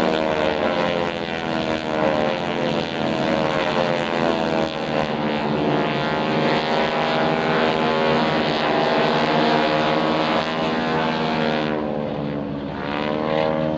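Boeing-Stearman PT-17 biplanes' radial engines droning steadily in flight. The engine note slides lower over the first few seconds and again near the end as the aircraft pass.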